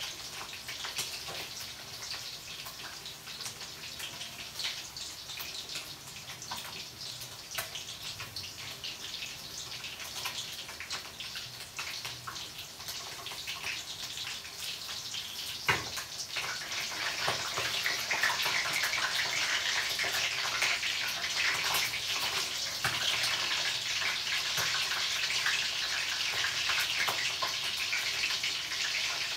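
Food frying in oil in a wok: a crackling sizzle that gets louder about halfway through, just after a sharp knock.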